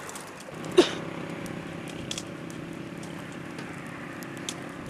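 A single sharp knock about a second in, fitting a blade chopping into a thorny branch, then a wood fire crackling with scattered faint pops over a steady low hum.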